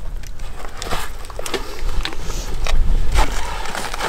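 Wind buffeting the microphone as a steady low rumble, with scattered clicks and scrapes of hikers' boots and trekking poles on sandstone rock.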